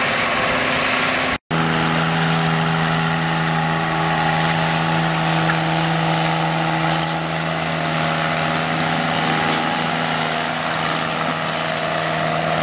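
Kubota compact tractor engine running at a steady, unchanging pitch as it tows a pulling sled. It follows a brief stretch of a larger Case tractor's engine that cuts off abruptly about a second and a half in.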